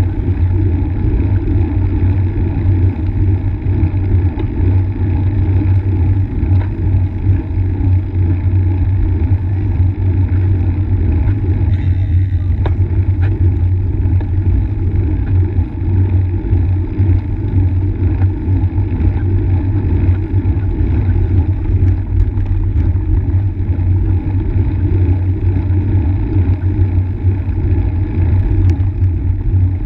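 Steady, loud low rumble of wind buffeting the microphone of a camera riding on a moving road bike.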